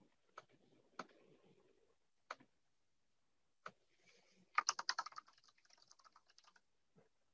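Four single mouse clicks about a second apart, then a quick run of typing on a computer keyboard starting about four and a half seconds in.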